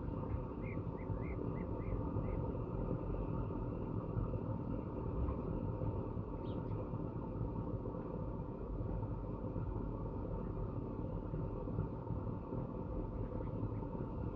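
Steady low outdoor rumble with a few faint short high chirps in the first couple of seconds.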